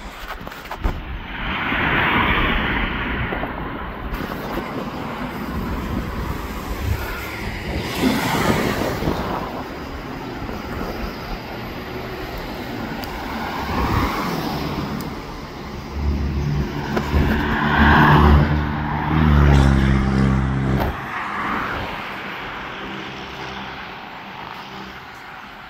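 Road traffic going by on the street, vehicles passing one after another. A vehicle's low engine note builds from about sixteen seconds in, is loudest around eighteen to twenty seconds, and drops away suddenly about twenty-one seconds in.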